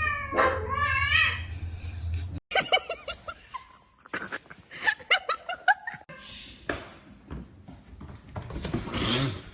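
A cat meowing in a long, bending call, followed by a person laughing in quick short bursts.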